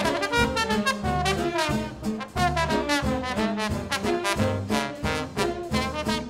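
Swing big band playing an instrumental passage, with trumpets and trombones to the fore over a steady swing beat from bass and drums.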